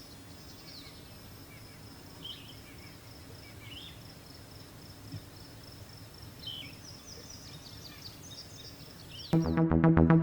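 Quiet outdoor ambience with a few short bird chirps and a thin, steady high trill. Electronic music with a steady beat starts abruptly near the end.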